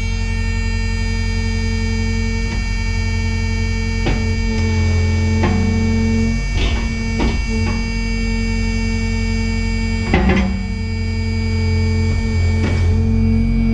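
Kubota KX excavator's diesel engine running steadily with a steady hydraulic whine and a handful of clunks scattered through; the engine note dips briefly under load about ten seconds in.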